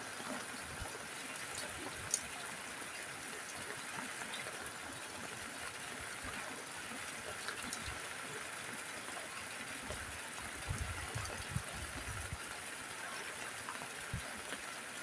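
Rain falling steadily on a roof: an even hiss with scattered ticks of single drops, and a few soft low thumps about ten to twelve seconds in.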